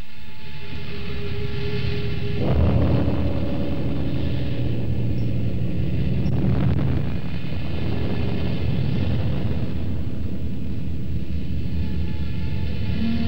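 Volcanic eruption rumbling: a low, continuous roar from Jolnir's vent venting steam and ash, which swells suddenly about two and a half seconds in and stays full.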